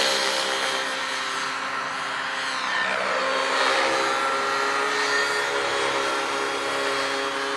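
Nitro-engined Align T-Rex 700 RC helicopter in aerobatic flight: a steady engine-and-rotor whine whose pitch wavers and glides a little. It drops in level over the first second as the helicopter climbs away from a low pass, then holds steady.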